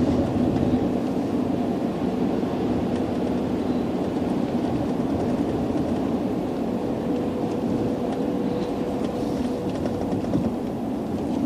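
Steady road and engine noise of a car driving at speed, heard from inside the cabin, with a faint steady hum running through it.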